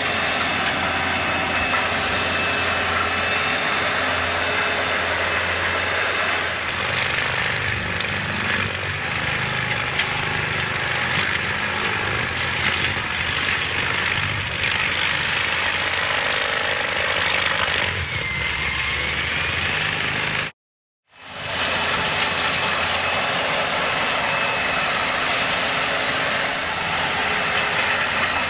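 Tractor engine running under load, driving a PTO forestry mulcher whose rotor grinds through undergrowth and soil in a loud, steady noise. The sound cuts out completely for about half a second roughly two-thirds of the way through.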